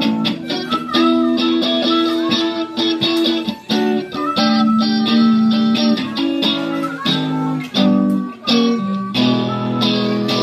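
Live electric blues: an electric guitar played through an amp, with an amplified harmonica cupped to a microphone holding long notes over it.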